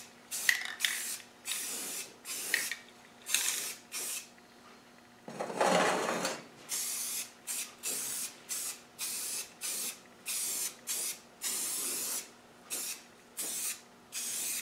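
Aerosol spray can of semi-gloss black paint spraying in many short hissing bursts, each a fraction of a second, with a brief pause near the fourth second. About five seconds in comes one louder, lower sound lasting about a second.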